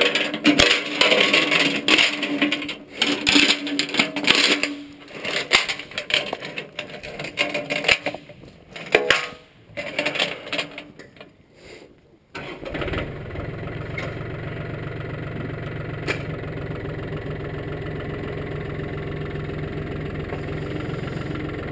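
Irregular clattering and rustling noise, then a John Deere compact tractor's diesel engine starts about twelve seconds in and idles steadily.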